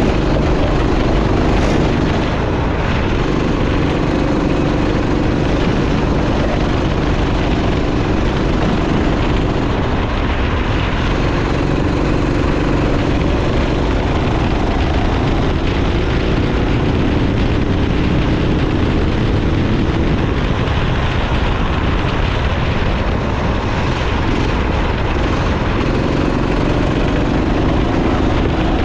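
Racing kart engine running hard, its note rising and falling every few seconds as it accelerates and backs off, over a steady wash of noise.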